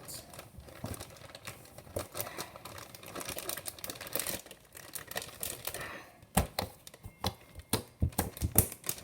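Fluffy slime squeezed and stretched by hand, making irregular clicking and popping sounds from trapped air, sharper and louder in the last few seconds.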